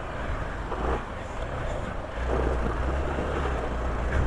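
Hero Xpulse 200's single-cylinder engine running under load on an uphill dirt-trail climb. It gets louder about two seconds in and holds there.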